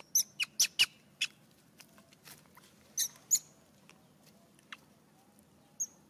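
Short, high-pitched macaque squeaks: a quick run of about six in the first second and a half, two more near the middle, then a couple of fainter single squeaks.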